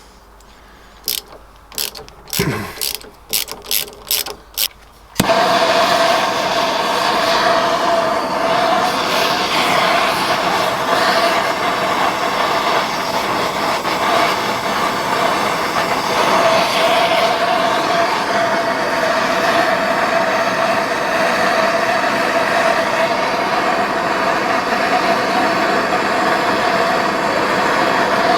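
A few sharp metallic clicks, then about five seconds in a heating tool starts with a steady, loud blowing hiss and a steady mid-pitched tone. It is heating a seized carburettor to free it.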